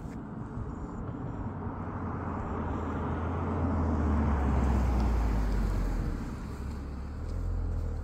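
A road vehicle driving past, its tyre and engine noise growing to a peak about halfway through and fading away, with a deep rumble underneath.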